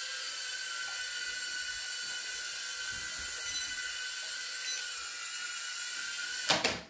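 HS210Pro toy quadcopter's small motors and propellers whining steadily at a high pitch while it flies. A sharp knock near the end, then the sound cuts off.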